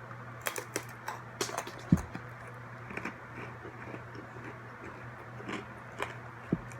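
Crunchy pretzels being chewed close to the microphone: irregular crisp crunches and clicks, with a low thud about two seconds in and another near the end, over a faint steady low hum.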